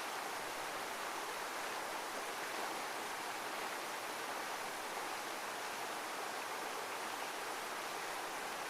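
Steady rush of running water, like a heavy waterfall: an even, unbroken hiss with no rise and fall of breaking waves.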